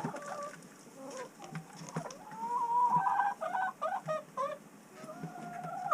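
Chickens clucking: short pitched calls, with a quick run of clucks in the middle.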